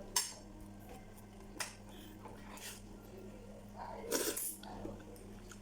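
Eating sounds at close range: sharp clicks of cutlery against a plate near the start and again about a second and a half in, then a louder noisy burst about four seconds in, over a steady low hum.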